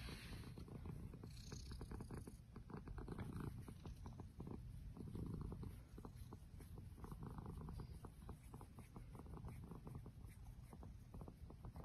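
A white long-haired cat purring while its chin is stroked: a low, fast-pulsing rumble that swells and eases every couple of seconds.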